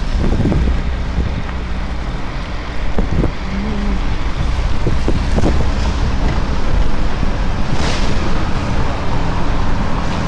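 Wind buffeting the camera microphone: a loud, steady rumble with a few knocks.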